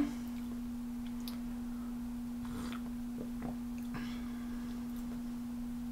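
A steady low hum on a single unchanging tone, with a few faint small sounds around the middle.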